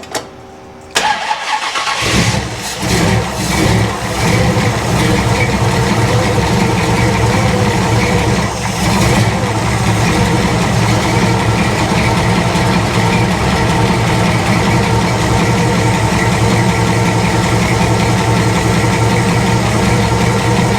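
1964 Chevrolet Impala's 454 big-block V8 being cranked over by the starter, catching about two seconds in and revving briefly, then settling into a steady, loud idle.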